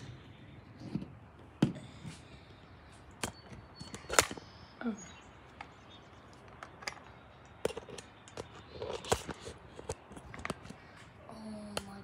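Scattered sharp clicks and knocks, a dozen or so at irregular spacing, the loudest about four seconds in, with a short voice sound near the end.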